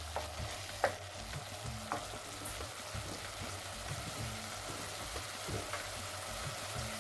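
Onion, tomato, garlic and ginger frying in oil in a pan, sizzling steadily, with a few light clicks of a utensil stirring, the sharpest about a second in.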